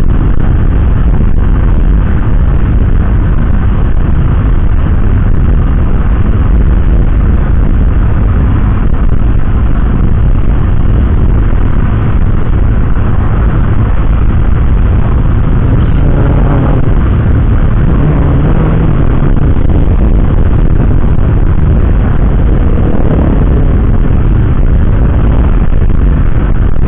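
Steady, loud wind rumble buffeting the camera microphone while riding a Honda Vario 125 scooter at road speed.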